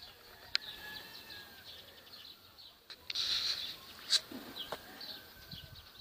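Faint birds calling, with two sharp clicks and a brief hissing rustle about three seconds in.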